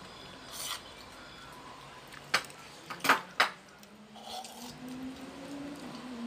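Dishes and spoons clinking: a soft knock, then three sharp clinks close together a little over two seconds in.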